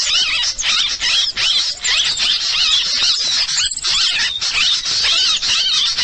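Bird-luring (suara pikat) recording: a dense, unbroken stream of overlapping high-pitched chirps and twitters from small birds, played to draw wild birds in to a trap.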